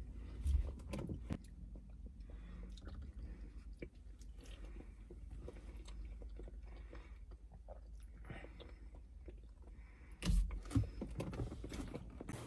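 Soft chewing and biting of bananas over the steady low rumble of a car cabin on the move, with a thump about half a second in and another near the end.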